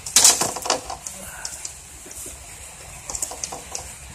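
Rooster flapping its wings and striking a standing mirror as it leaps at its own reflection: a loud burst of flapping and knocks in the first second, then a few lighter scuffs and taps about three seconds in.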